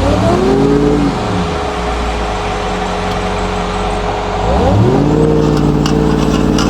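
Ford Bronco Raptor's engine revved twice: a short rise and fall right at the start, then a second rise a little past the middle that is held at higher revs, with a few light clicks near the end.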